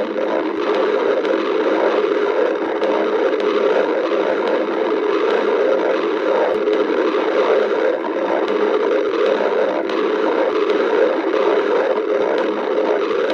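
A hungry person's stomach growling and gurgling, recorded close against the belly: a steady, churning rumble that goes on without a break.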